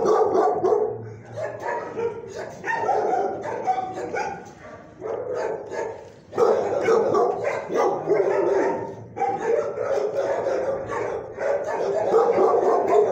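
Dogs in shelter kennels barking almost without a break. The barks overlap, with a short lull about five seconds in.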